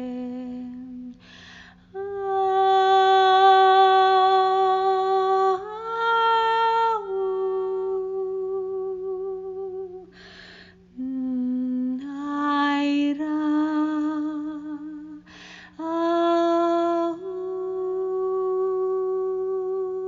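A woman's voice toning long, wordless held notes that step between pitches, some with a wavering vibrato, with audible breaths between phrases. A faint steady low drone runs underneath.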